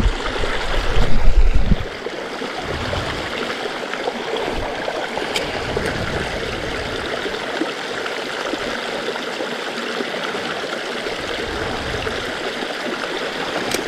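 Steady rush of a rocky creek pouring over bedrock and small cascades. A loud low rumble, like wind or handling on the microphone, in the first two seconds.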